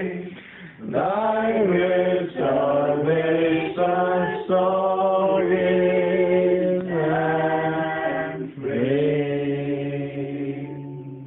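Voices singing unaccompanied in slow phrases of long held notes, with short breaks between phrases; the singing fades near the end.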